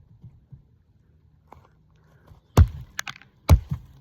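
Axe chopping into wood: two hard strikes about a second apart in the second half, each followed by a smaller knock, after a quieter stretch of light knocks.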